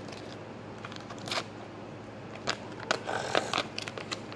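A piece of sticky tape being handled and pulled off the fingers: scattered sharp crackles, with a denser stretch of crinkling about three seconds in.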